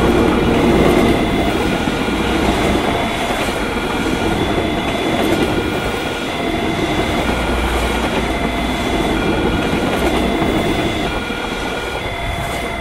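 A diesel train passing a level crossing, its wheels clattering rhythmically over the rail joints. Over it a railroad crossing alarm rings, switching back and forth between two electronic tones.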